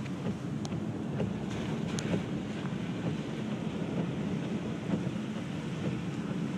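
Car driving along a rain-soaked road in a storm, heard from inside the cabin: a steady low rumble of tyre and wind noise with a few light ticks.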